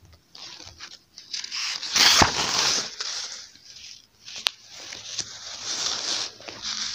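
Pages of a paperback textbook being flipped and turned by hand: paper rustling and crinkling in a couple of swells, with one sharp tick about halfway through.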